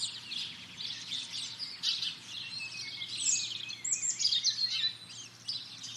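Several birds singing and chirping, many short overlapping calls and trills, some high whistled notes sliding down in pitch around the middle.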